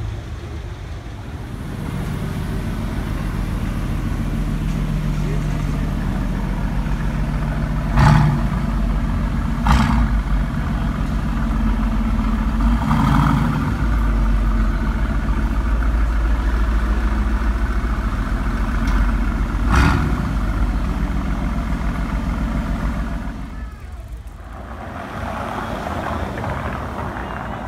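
Cars running in slow street traffic, among them a Mercedes-AMG GT roadster's V8, a steady low engine rumble with three sharp cracks about eight, ten and twenty seconds in.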